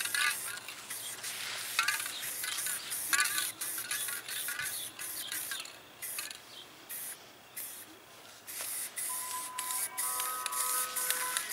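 Aerosol can of Rust-Oleum gloss enamel spray paint hissing in short repeated bursts, pausing about six seconds in. Background music with steady tones comes in near the end.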